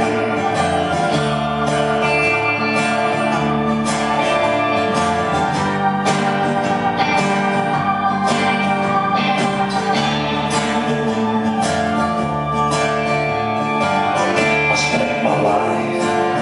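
Live band playing an instrumental passage of the song, with no singing.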